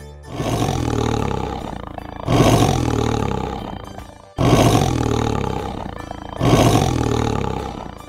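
Tiger roaring: a growl followed by a louder roar, the same pair heard twice.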